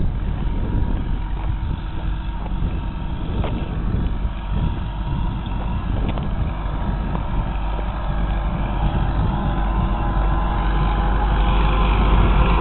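New Holland TS110 tractor's diesel engine running as it pulls a Kuhn rotary hay tedder across the field, growing louder near the end as it comes close. Wind rumbles on the microphone.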